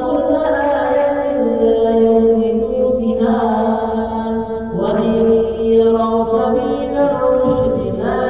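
Arabic Quran recitation of ruqyah verses: one voice chanting long, drawn-out melodic phrases of held notes that step in pitch, with fresh phrases starting about three, five and eight seconds in.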